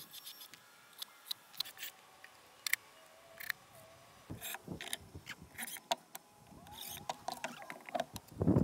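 Cordless drill driving screws into a plywood drawer box in short runs, its motor briefly winding up and down, among scattered clicks and taps from handling the wood. A louder rumble comes near the end.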